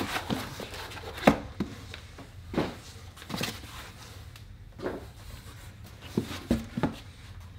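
Cardboard box and foam packing being handled: scattered short knocks, rubs and scrapes at an uneven pace, the sharpest about a second in.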